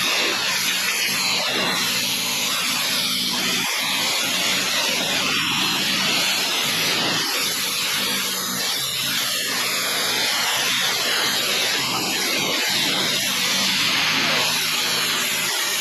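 Gas-engine pressure washer running steadily, its water jet hissing against a retaining wall as it strips dirt, algae and ivy.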